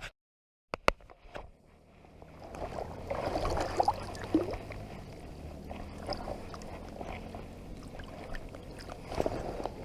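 Water sloshing and splashing at the river's edge, with small knocks and rustles of handling, after a brief dead gap and a couple of clicks at the start.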